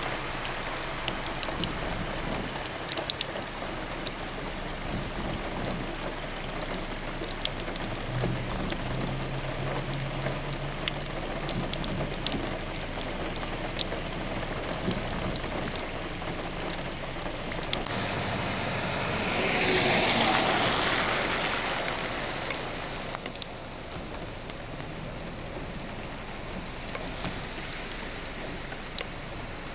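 Steady rain pattering on a flooded street, with vehicles driving through standing water. A low engine hum comes in about a third of the way in. About two-thirds of the way in, a vehicle's tyres hiss loudly through the floodwater, swelling over a few seconds and then fading.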